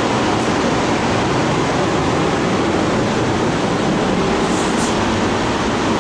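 Steady, loud rushing noise with a fluttering low rumble, unbroken throughout.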